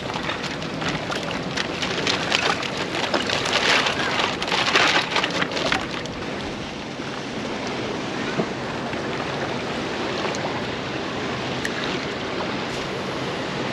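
Crinkling of a clear plastic tackle packet being handled, busiest over the first six seconds, over a steady rush of wind and water on the jetty rocks.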